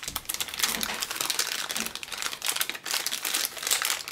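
Clear plastic bag crinkling irregularly as hands handle and open a small bagged camera mount.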